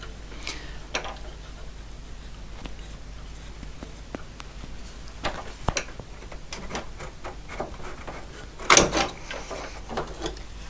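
Clicks and knocks of hands handling the front display panel assembly of a PDP-8/M minicomputer, working it loose from its metal chassis, with a louder clatter near the end.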